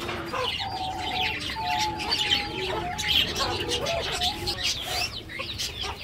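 Hens clucking with a run of drawn-out, wavering calls, over many small cage birds chirping high and fast.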